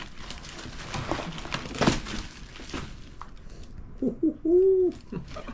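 Cardboard box flaps and plastic packing tape crackling and rustling as the box is pulled open, with sharp crinkles. About four seconds in, a man gives a short, rising-and-falling "oooh" of amazement.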